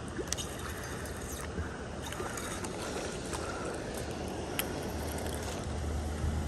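Steady wash of river water flowing past the bank, with a few light clicks and knocks from handling a fishing rod.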